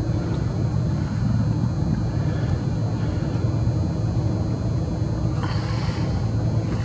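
Steady low rumble with a hum, and a short hiss about five and a half seconds in.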